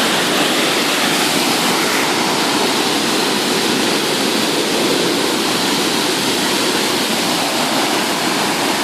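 Waterfall rushing, a loud steady roar of falling water.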